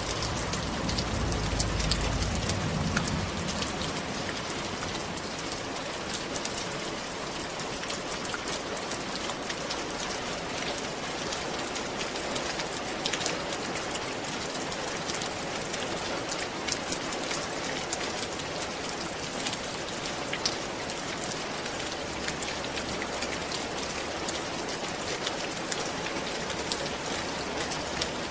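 Steady rain falling on a roof, a dense even hiss with many individual drops ticking sharply. A low rumble sits under it for the first few seconds.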